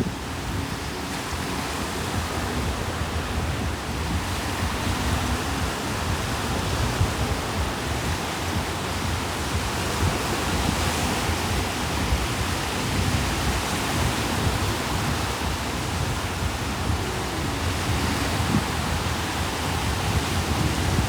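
Sea waves washing on the shore, an even, steady rush of water with no distinct breaking crashes.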